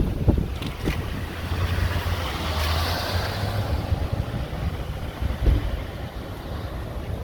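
Wind buffeting the microphone over steady roadside traffic noise, with a vehicle passing, its noise swelling and fading around the middle.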